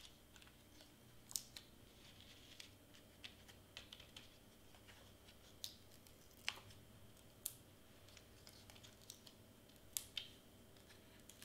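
Faint, scattered small clicks and crinkles of adhesive foam tape pieces being peeled from their backing and pressed onto cardstock, with a few sharper ticks.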